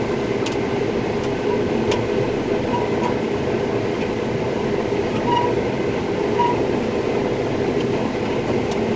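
Combine harvester running while harvesting corn, heard from inside the cab: a steady mechanical drone, with a few faint clicks.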